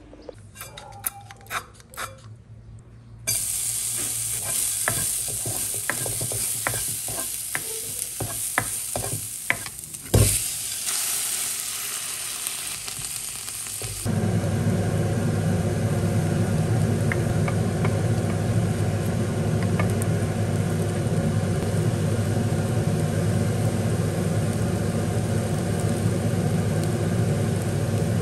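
A few sharp clicks, then shrimp, garlic and chilli sizzling in oil in a nonstick wok, with many short clicks and scrapes from a plastic spatula stirring. About fourteen seconds in it changes to a louder, steady frying noise with a low hum as shredded cabbage cooks.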